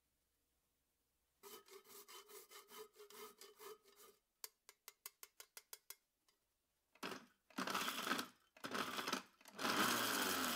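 Half a nutmeg grated on a fine rasp grater in quick rhythmic strokes, followed by a run of light sharp taps. Then a blender starts grinding the whole spices into gingerbread spice powder in three loud pulses, the last one the longest.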